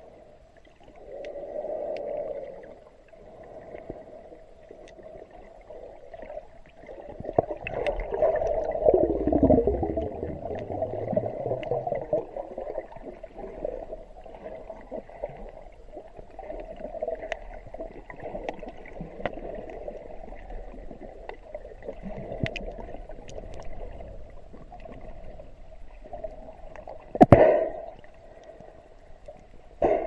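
Muffled underwater noise picked up by a submerged camera: water swishing and gurgling, swelling louder a few seconds in, with scattered faint clicks and one sharp knock near the end.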